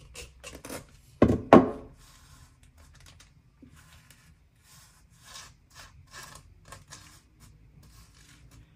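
Sugar shaken from a jar onto bread with light ticking clicks, then two loud knocks about a second in as the jar is set down on the counter. After that comes quiet, intermittent scraping of a knife spreading butter and sugar across the bread.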